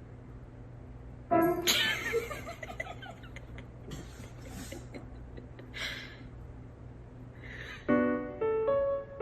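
A loud sudden sound about a second in that dies away over a couple of seconds, followed by a few short breathy hisses; near the end, piano music begins with single notes struck one after another over a faint steady hum.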